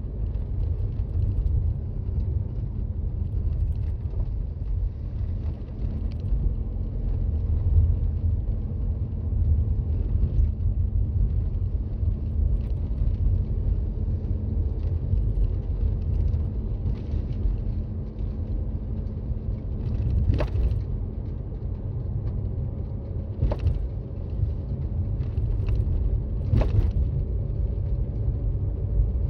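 Steady low road and engine rumble inside a Toyota Raize's cabin while driving on snow-covered roads. A few short, sharp creaks or knocks come in the last third.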